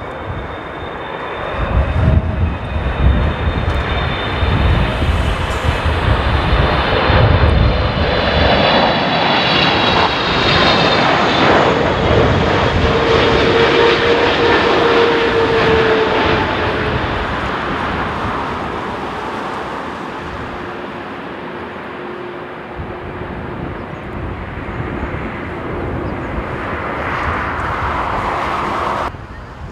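Boeing 777 jet engines on landing approach passing low overhead. The deep rumble and fan whine build up, peak with a tone that drops in pitch as the jet goes by, then die away.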